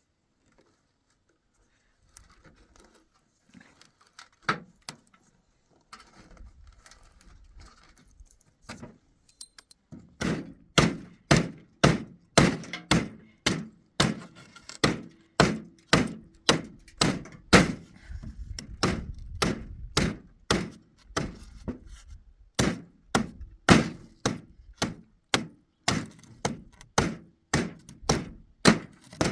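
Hammer blows on wood, repeated about twice a second with short pauses, starting about ten seconds in after a few scattered knocks and handling sounds.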